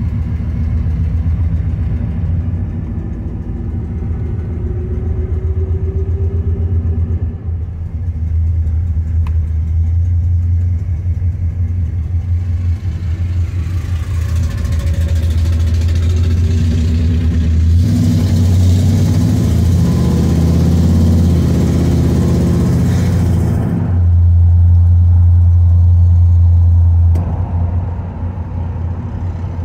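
Built 390 cubic-inch Ford V8 with headers and dual four-barrel carburetors, heard from inside the car, running with a deep steady rumble at low speed. About halfway through it grows much louder and rises in pitch as the car accelerates. It holds loud for several seconds, then drops back near the end as the throttle eases.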